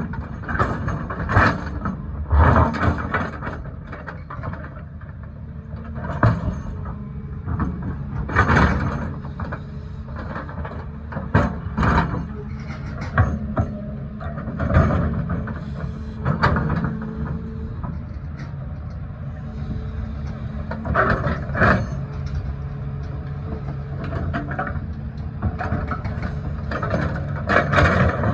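Caterpillar excavator's diesel engine running steadily, with short loud knocks and scrapes every second or two as the bucket digs into the mountainside.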